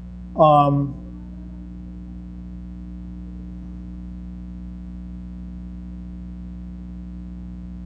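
Steady electrical mains hum in the recording, a low buzz with a faint higher tone over it.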